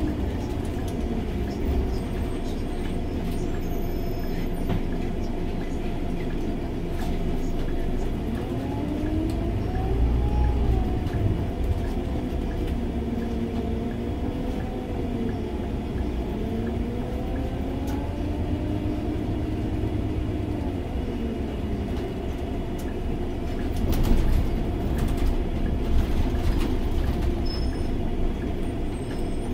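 Cabin sound of a Scania OmniLink three-axle city bus under way: its biodiesel engine and drivetrain run with a steady low rumble and a whine that rises and falls in pitch as the bus speeds up and slows. Sharp rattles and knocks come from the cabin about three-quarters of the way through.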